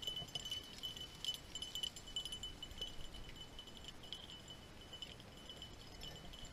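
Faint, irregular metallic tinkling, small light clinks scattered through, over a thin steady high tone.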